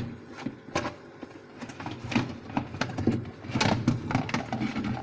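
Plastic food containers and lids being handled and knocked together in a fridge: a run of irregular clicks, knocks and rattles.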